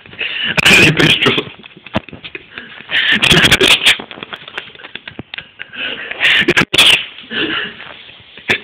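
Three loud bursts of human voice close to the microphone, about half a second, three seconds and six seconds in, with clicks and knocks between them.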